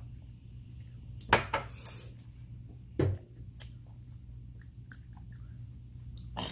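Close-up eating sounds: chewing and biting into fried chicken wings and fries, with two sharp, louder noises about a second and a half in and about three seconds in, over a steady low hum.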